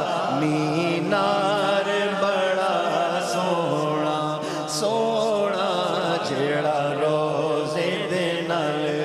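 A man singing a Punjabi naat, drawing out long, wavering melismatic notes between lines of the verse. Steady tones are held beneath the voice.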